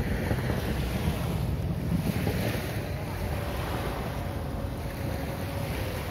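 Small waves lapping and washing up on a sandy beach, under heavy wind buffeting on the microphone. A faint steady drone joins a couple of seconds in.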